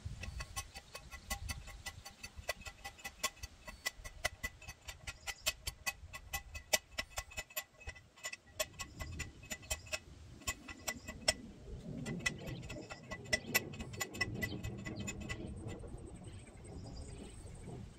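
Manual post driver pounding a steel T-post into the ground: a steady, rhythmic run of metal-on-metal clangs, about two to three a second, each with a short metallic ring. The strikes stop near the end.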